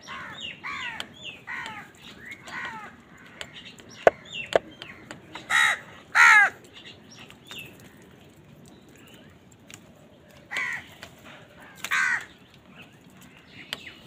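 House crows cawing: a run of quieter calls over the first three seconds, two loud caws about halfway through, and two more near the end. Two sharp knocks come just before the loud caws.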